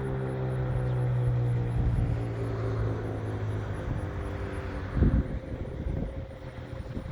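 Federal Signal 2001-130 outdoor warning siren winding down after its one-minute alert: a low tone with overtones, slowly falling in pitch and fading out about five seconds in. A single thump comes about five seconds in, and a faint steady tone from a distant siren remains.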